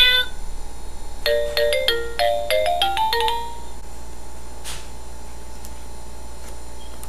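Electronic sound book speaker playing a short chime jingle of about a dozen quick beeping notes that climb at the end, just after a recorded cat meow finishes.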